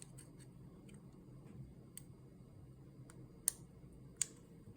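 Small 3D-printed plastic parts clicking and tapping against each other as an extractor and its short spring are fitted to a plastic bolt. There are a few scattered sharp clicks, the loudest about three and a half seconds in.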